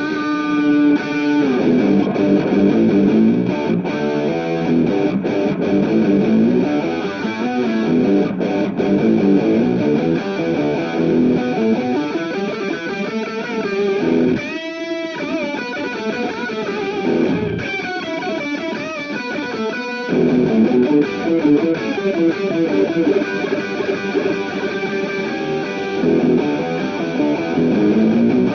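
Electric guitar played through an A/DA Pitchtraq pitch-shifter effect, mixing picked notes and chords. About halfway through, a short burst of swooping, wavering pitch glides.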